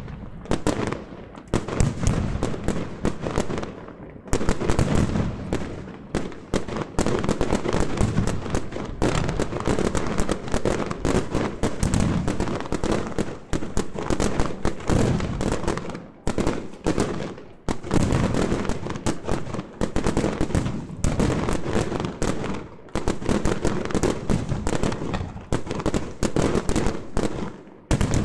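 Fireworks display: a dense, continuous barrage of bursts and crackles, the reports packed closely together, with a few brief lulls.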